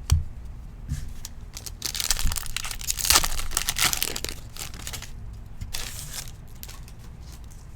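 A foil trading-card pack wrapper being torn open and crinkled, in a long crackling stretch from about two seconds in and a shorter one near six seconds, with scattered light clicks of handling.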